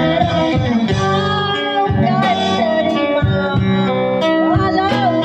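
A woman singing a slow song with wavering held notes, over a strummed guitar accompaniment.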